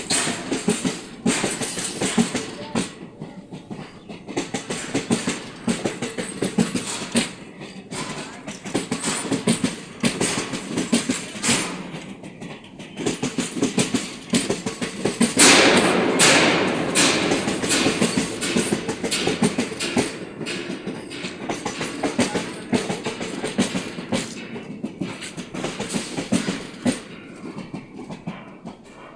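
Passenger train running, its wheels knocking over the rail joints in an irregular clatter over a steady rumble, getting louder about halfway through.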